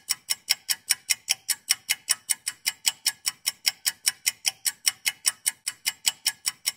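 Clock ticking sound effect: fast, even ticks at about five a second, used as a time-passing effect.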